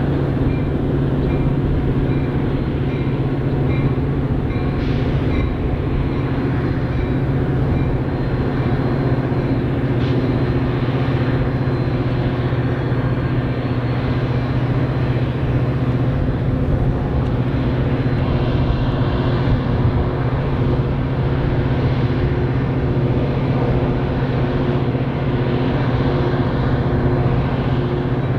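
Metra commuter train's EMD F40PH-series diesel locomotive running with a steady, unchanging drone.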